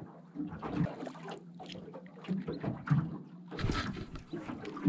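Small waves slapping and knocking against a boat's hull, with a faint steady hum underneath; the slapping grows busier towards the end.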